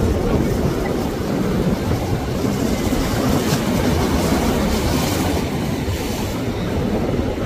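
Steady rumbling wind noise on the microphone, with surf washing against the rock jetty.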